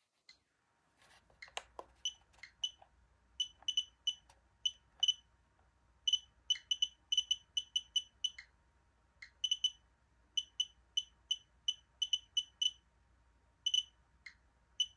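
Radex radiation detector giving short, high beeps at irregular intervals, sometimes several in quick succession, as it registers radiation from an americium-241 smoke-detector source.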